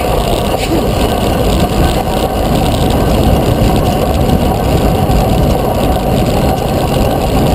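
Wind rushing over a bike-mounted GoPro's microphone as a track bike rides at speed on a concrete velodrome: a loud, steady rumble.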